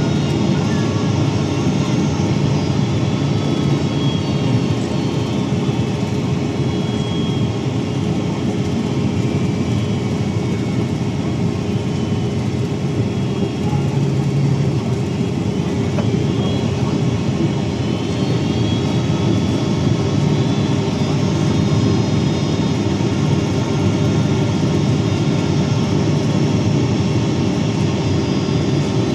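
Boeing 767-300 cabin noise heard from inside the cabin: a steady roar of the jet engines and rushing air, with faint high whining tones above it.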